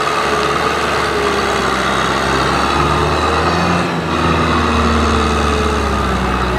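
Kubota M6040SU tractor's diesel engine running steadily under load as it pulls a cultivator through flooded paddy mud, with a brief dip in the sound about four seconds in.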